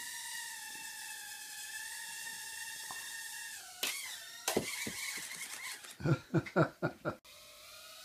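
Tiny quadcopter's motors whining at a steady high pitch, which sags about three and a half seconds in. Sharp knocks follow, with a quick run of loud knocks for about a second near the end. The whine then cuts out abruptly and starts again lower, slowly rising.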